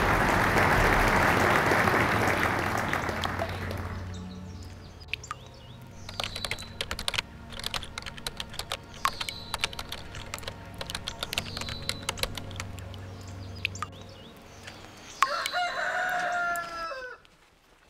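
Audience applause fading out over the first few seconds. Then a run of quick, irregular clicks like keyboard typing, over a low steady hum. Near the end a rooster crows once.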